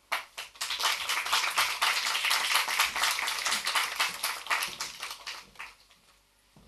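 Audience applauding, many hands clapping, starting abruptly and dying away after about five and a half seconds.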